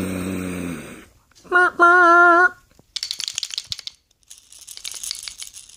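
A man's voice imitating a car engine with a falling 'vroom' that fades out in the first second, then two short hummed notes at one steady pitch. Then dried kernels inside the hollow wooden toy car rattle as it is shaken: a short burst about three seconds in and a longer, fainter one near the end.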